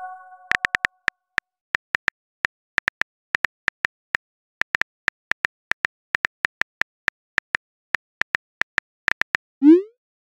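Smartphone keyboard tap clicks, irregular and several a second, as a message is typed. Near the end there is a short rising whoosh: the message-sent sound.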